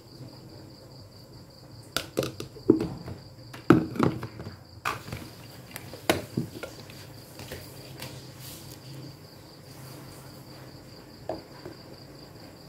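A series of hard plastic-and-glass knocks and clicks as a food processor's lid and motor unit are handled and fitted onto its glass bowl, bunched in the first half, with one more knock near the end.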